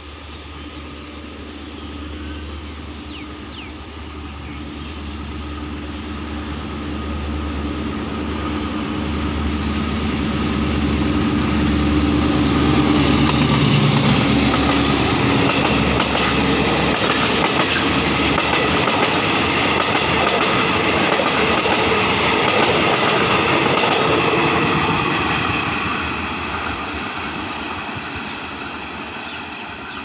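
Alsthom AD24C diesel-electric locomotive hauling a passenger train past, its diesel engine drone growing louder as it approaches. About halfway through, the coaches' wheels clatter rhythmically over the rail joints, and the sound fades as the train draws away.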